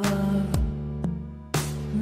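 Background music: sustained instrumental notes over a soft beat struck about once a second, dipping briefly just before the second beat.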